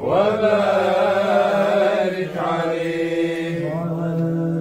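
Sufi devotional chanting of a qasida: sung voice holding long, slowly wavering notes, with a new phrase beginning at the start and another about two seconds in.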